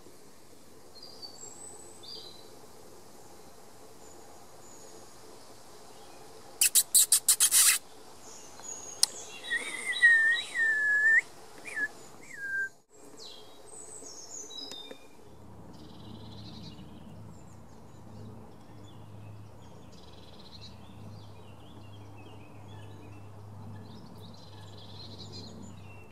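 Wild birds singing and calling in woodland, with a quick run of sharp clicks about seven seconds in and a few loud, clear whistled notes a few seconds later. A low steady hum comes in about halfway through, with faint chirps over it.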